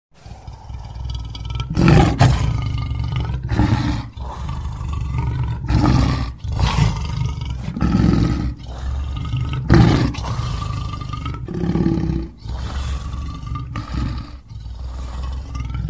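Lion roaring and growling: a long run of pitched calls, one every second or so, with short breaks between them.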